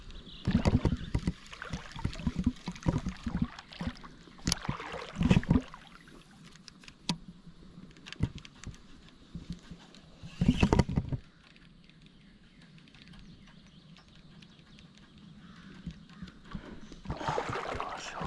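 Water splashing and sloshing with irregular knocks and handling noises, in clusters during the first few seconds and again about ten seconds in, then a quieter stretch of flowing water.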